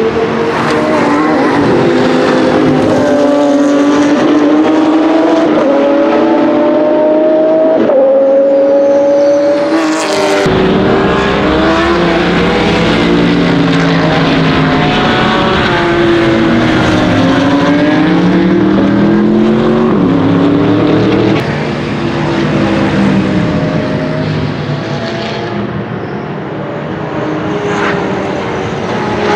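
Pagani Zonda GR's Mercedes-AMG 6.0-litre 60° V12 race engine at speed on a circuit, its pitch climbing and dropping again and again as it shifts through the gears over several passes.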